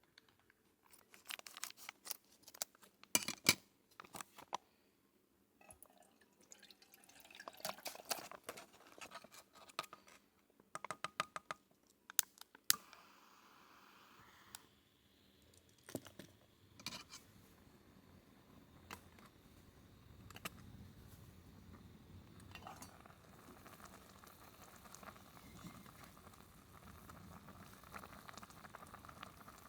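Close handling sounds: a quick run of sharp clicks and clinks over the first dozen seconds, then a steady faint hiss with a few scattered clicks.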